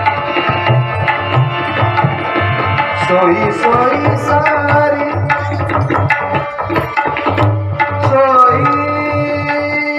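Hindustani classical music in raag Bhairavi: tabla keeping a steady rhythm with deep bayan strokes under held harmonium notes, while a melody slides between notes about halfway through and again near the end.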